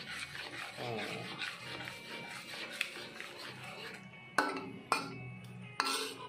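A metal spatula scraping and stirring braised bullfrog pieces in thick soy sauce in a metal wok, followed near the end by three sharp, ringing clanks of the spatula against the wok.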